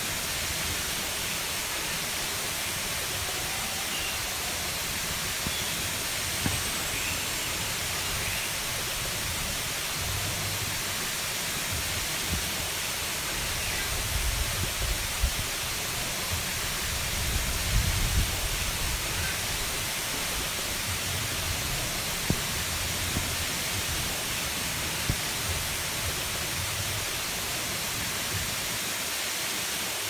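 Waterfall pouring over a rock ledge into a pool: a steady rushing hiss of falling water, with a few low bumps and a brief low rumble about halfway through.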